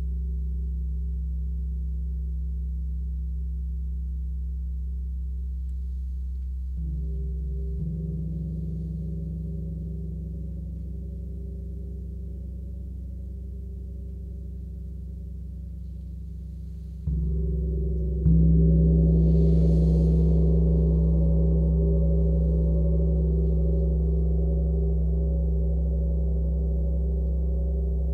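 A 36-inch Sun Gong rings with a deep, sustained hum that slowly fades, kept going by soft mallet strokes. Two strokes come about a quarter of the way in, and two stronger ones a little past the middle. The last is the loudest and brings a brief bright shimmer above the hum.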